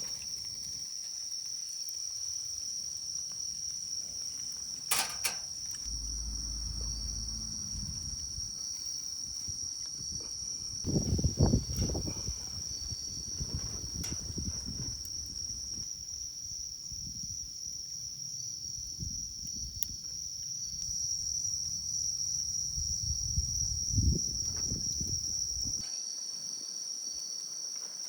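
Insects chirring steadily in one high, unbroken tone. Over it come a sharp click about five seconds in, a louder spell of low knocking and rustling around the middle, and another brief knock near the end.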